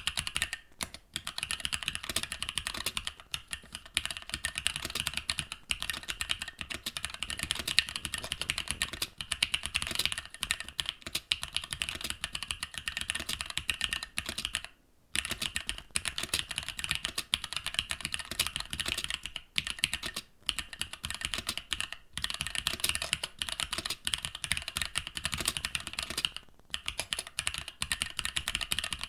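Fast, continuous typing on a mechanical keyboard with linear switches, key strokes clacking in a dense stream broken by a few short pauses, the longest about halfway through.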